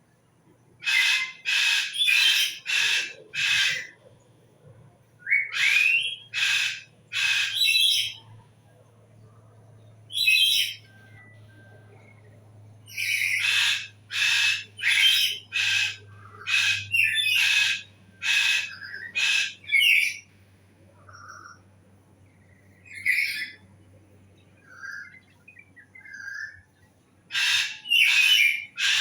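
A bird calling in loud runs of three to five short repeated notes, with a few pauses between runs and some softer, scattered chirps later on.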